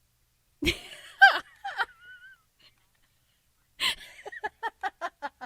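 A woman laughing: a sudden gasping outburst with a couple of rising-and-falling cries, then after a pause a breath in and a quick run of short 'ha-ha' pulses, about five a second.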